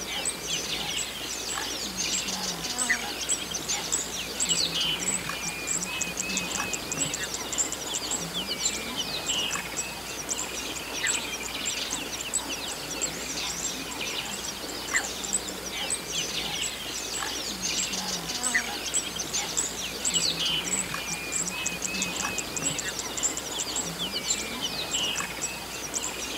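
Dense chorus of wild birds chirping and calling, many overlapping short notes, with a few call phrases recurring every few seconds.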